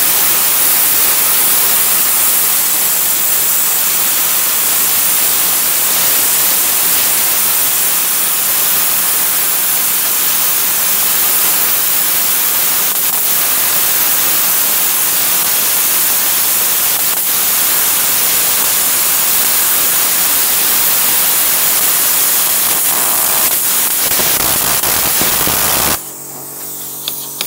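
Cut 80 plasma cutter with a built-in air compressor cutting thick steel plate by hand: a loud, steady hiss of the plasma arc and air jet. It stops abruptly near the end as the cut is finished.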